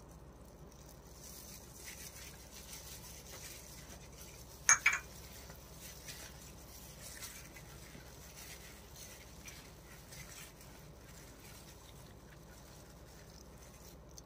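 Faint sounds of a plastic-gloved hand mixing thick spice paste in a steel platter. A sharp double clink a little under five seconds in: a drinking glass set down on metal.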